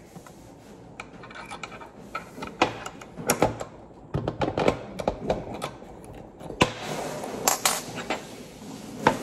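Irregular metallic clicks and knocks of a rear-sight pusher tool being handled while its pusher screw is turned with a hex key to drift a pistol's rear sight, with a stretch of rubbing and scraping about two-thirds of the way through.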